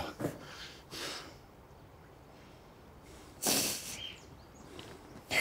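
A crying woman sniffling: a few short sniffs, the strongest about three and a half seconds in.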